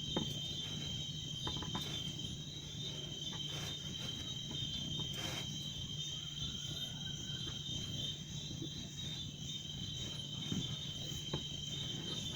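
Steady high-pitched trilling of insects in the background, with a low hum and a few faint scattered clicks and taps.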